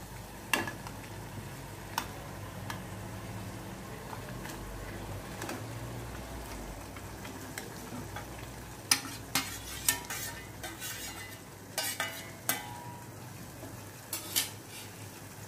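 Masala gravy in a kadai sizzling steadily in oil that has separated, as fried chicken pieces are scraped into it from a steel bowl. Sharp clinks and scrapes of the steel bowl and spoon against the pan, clustered from about nine to ten seconds in and again around twelve and fourteen seconds.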